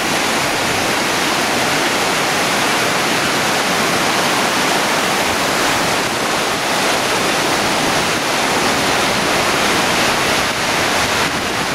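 Sea surf breaking and washing in, a steady rush of water noise.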